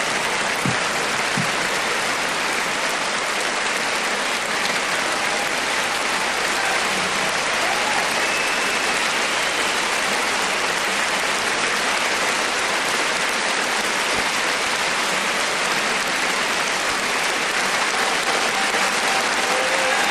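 Audience applauding steadily without a break.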